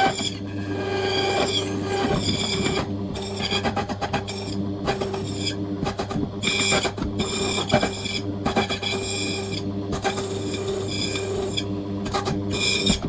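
Key-cutting machine running with a steady motor hum while its cutter works a safe key blank, in a series of short passes that each give a shrill, ringing screech.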